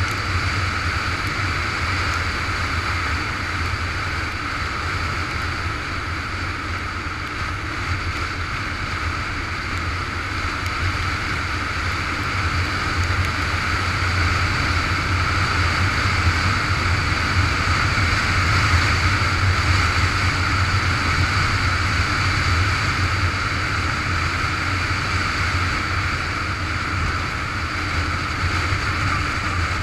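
Motorcycle cruising steadily on a wet road: a low engine drone mixed with wind rush and the hiss of tyres on wet asphalt.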